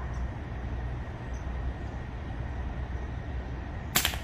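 Steady low rumble, then a single sharp air rifle shot near the end, with a brief ring after the crack.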